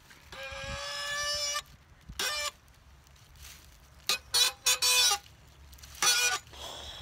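Chickens calling: a drawn-out rooster crow about half a second in, a short call after it, then a quick run of four squawking calls about four seconds in and one more near the end.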